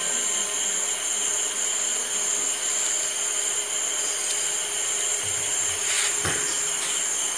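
Steady high-pitched chirring of night insects, with a faint steady hum underneath.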